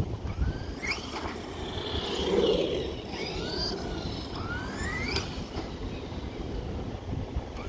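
Brushless electric motor of a JLB Racing Cheetah 1/10 RC truck on a 3S LiPo battery, whining up in pitch as it accelerates, about three times. It is loudest as it passes close, two to three seconds in.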